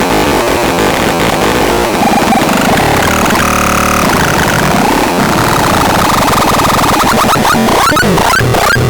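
Loud, dense electronic sounds with sweeping pitch glides and a held chord-like tone about halfway through, turning into a pulsing low beat near the end.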